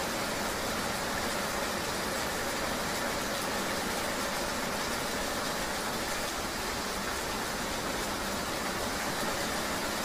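Steady rain ambience with a vehicle running through it: an even, unbroken hiss of rain and road noise, with no distinct events.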